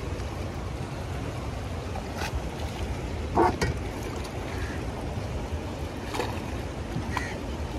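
Riverside ambience: a steady low rumble of moving river water and wind, with a few faint clicks and one louder short knock about three and a half seconds in.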